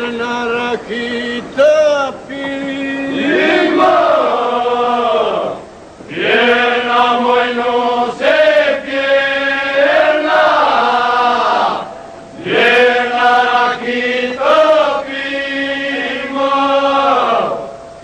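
Male folk group singing a Gjirokastër oda song in Albanian polyphonic style: a steady drone is held under the lead voices. The song runs in phrases of about six seconds, with short pauses for breath between them.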